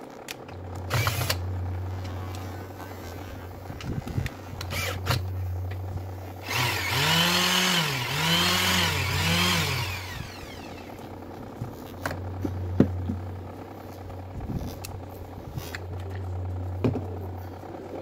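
Makita BO5030 random orbital sander running with a steady hum, with scattered knocks from handling. About six seconds in it gets louder for a few seconds, its pitch rising and falling three times.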